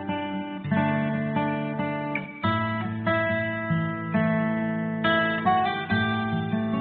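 Background music on acoustic guitar: chords struck and left to ring, a new chord about every second.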